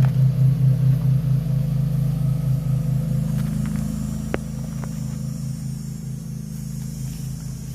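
A lawn mower engine running steadily with a pulsing low drone, noisy, gradually getting quieter. There is one sharp click about four seconds in.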